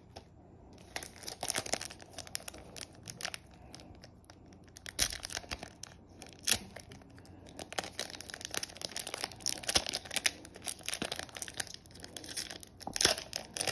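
Foil wrapper of a Yu-Gi-Oh booster pack crinkling and crackling as it is handled, with sharp crackles; near the end it is pinched at the crimped top and torn open.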